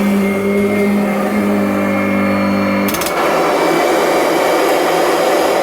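Kirby Avalir upright vacuum running with a steady pitched hum. About three seconds in there is a sharp click, and the hum gives way to a rougher, steady rushing sound.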